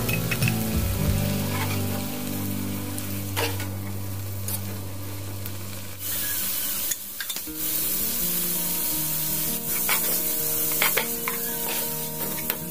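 Bean sprouts, green beans and chilies sizzling in a stone-coated frying pan as they are stir-fried, with the metal spatula scraping and clicking against the pan now and then.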